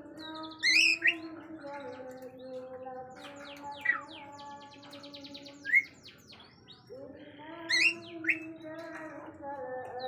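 Cockatiel chirping and whistling: loud, sharp sweeping chirps about a second in, near 4 and 6 seconds and twice near 8 seconds, with a quick run of short high twittering notes in the middle.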